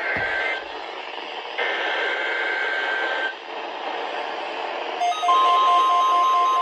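Weather-radio static with two bursts of the two-pitch digital SAME header data tones of an Emergency Alert System message. About five seconds in, a steady NOAA Weather Radio warning alarm tone starts, joined by rapid pulsing beeps.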